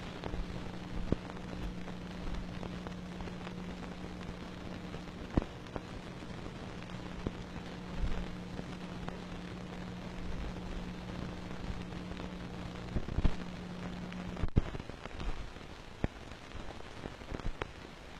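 Crackle and scattered pops of an old film soundtrack's surface noise, with a steady hum that cuts off near the end.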